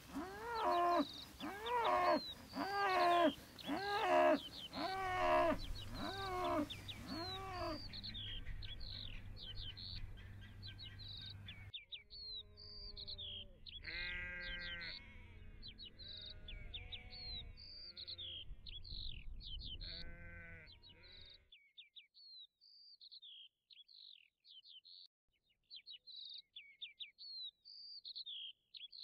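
Farm livestock calling, many calls in quick succession at first, then fewer, higher calls that stop about two-thirds of the way through. Behind them a small bird chirps over and over, and only that faint chirping is left near the end.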